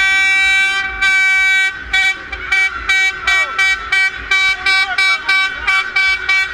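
A loud horn sounding: two long blasts, then a rapid run of short toots, about three a second.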